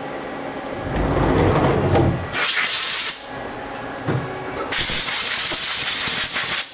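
The sliding guard door of a CNC lathe rumbles open, then compressed air hisses in two bursts, a short one and a longer one of about two seconds, each cut off sharply, as the freshly milled part is blown clean of coolant and chips.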